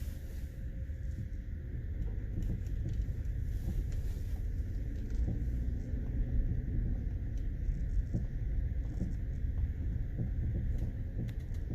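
Lincoln MKT driving over rough road: a steady low road rumble with a few faint pops scattered through it. The pops come from worn-out sway bar links.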